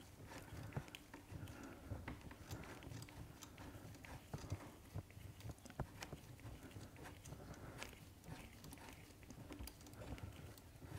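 Faint, irregular small clicks and rubbing as the paralever pivot bolt of a BMW R1200GS final drive is unscrewed by gloved fingers.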